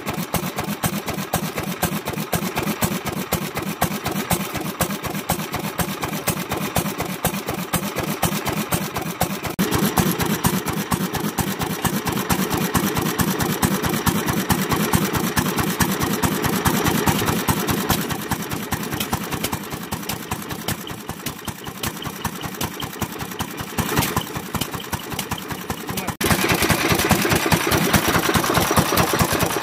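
Sekiya Nouki 'Best' single-cylinder, hopper-cooled kerosene stationary engine running steadily, a rapid even beat of firing strokes. The sound shifts abruptly about ten seconds in and again near the end.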